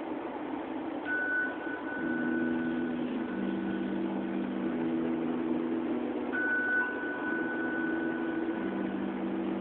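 Slow ambient drone music: low held notes that shift in pitch every second or two, with a thin high tone held above them that comes in about a second in and again past the middle.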